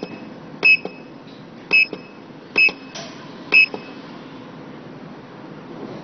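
Control panel of an automatic card-cutting machine beeping as its Set button is pressed: four short, high electronic beeps about a second apart, each with a soft button click. Each beep confirms a keypress while stepping through the machine's settings.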